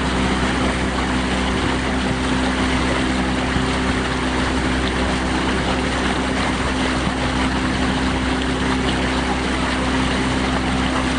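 Steady wash of water against rocks, with a steady low hum like a motor running underneath.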